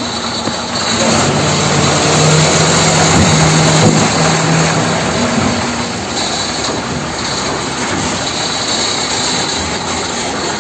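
Steady engine-like running noise with a low hum, louder between about one and five seconds in.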